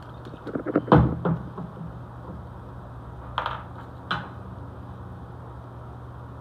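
Knocks and clatter of kitchen containers and utensils being handled on a counter, loudest about a second in, followed by two brief swishes a little past the middle, over a steady low hum.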